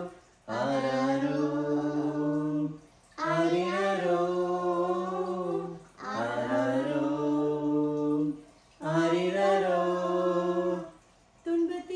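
Female and children's voices singing a Tamil Christmas lullaby a cappella, in four slow phrases of long held notes with short breaths between.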